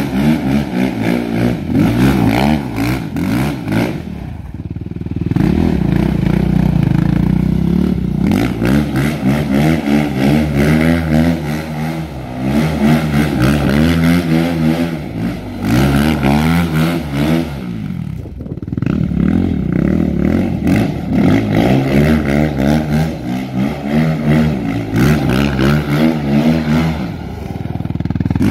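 Yamaha YFZ450 quad's single-cylinder four-stroke engine revving up and down over and over as the quad is spun in circles. The revs drop briefly about four seconds in and again near eighteen seconds.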